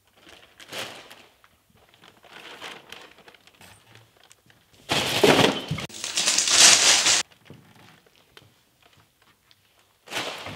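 Hands rummaging in a bag, with loud crinkling of aluminium foil from about five to seven seconds in; fainter rustles come before it.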